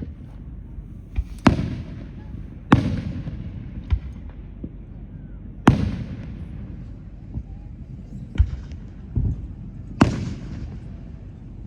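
Fireworks exploding: four loud bangs, each trailing off in a long rolling echo, with several smaller pops in between.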